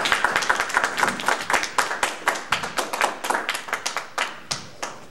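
Audience applauding, dense at first and thinning to scattered claps as it dies away near the end.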